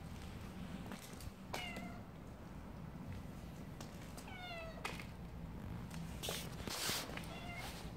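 Black stray cat meowing three times: a short meow about a second and a half in, a longer one about halfway, and another short one near the end. Two brief scuffing noises come just before the last meow and are the loudest sounds.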